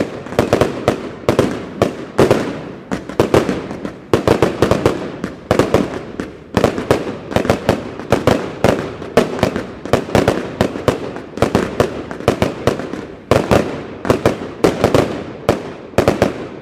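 Consumer fireworks firing in rapid succession: a dense, loud run of launch thumps and bursting aerial shells, several bangs a second, stopping abruptly at the end.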